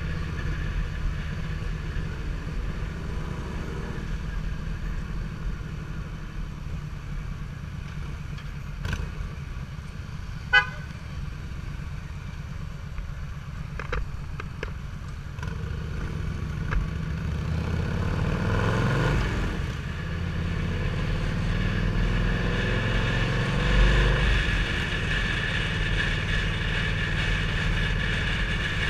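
Cruiser motorcycle engine running steadily while riding. A short horn beep sounds about ten seconds in, and the engine revs up between about seventeen and twenty seconds as the bike accelerates.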